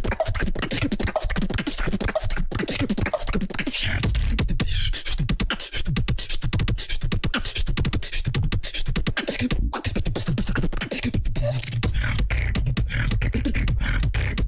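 Solo beatboxing into a microphone: a fast, dense stream of vocal drum hits (clicks and snares) over deep bass sounds, with the bass growing heavier and more continuous in the last few seconds.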